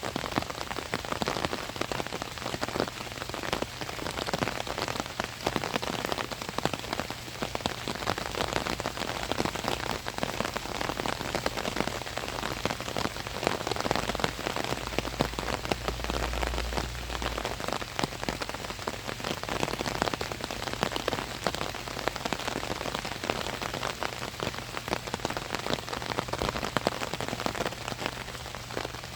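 Steady rain pattering on an umbrella overhead, dense with countless individual drop ticks. A brief low rumble comes in about halfway through.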